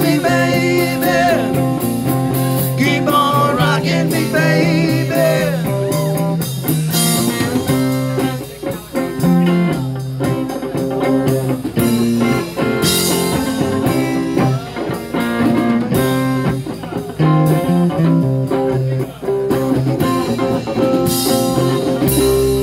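Band playing blues rock: an electric guitar line with bending notes over a bass line stepping from note to note, with cymbal hits.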